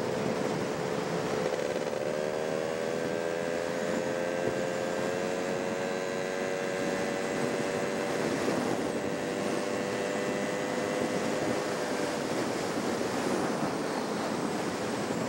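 Vehicle travelling along a road: steady rushing wind and road noise over the microphone, with an engine hum that rises a little in pitch about two seconds in and fades out near the end.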